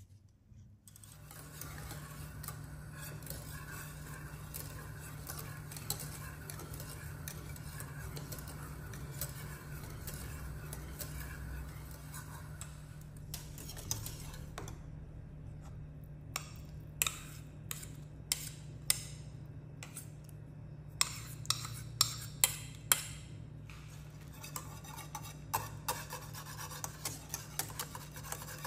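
Wire whisk stirring milk in a metal saucepan, the wires scraping and clinking against the pot; in the second half come many distinct sharp clinks of the whisk tapping the pot's side. A steady low hum runs underneath.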